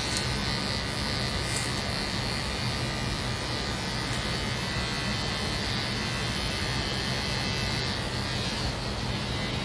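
Electric hair clippers running with a steady buzz while trimming hair at the nape of the neck.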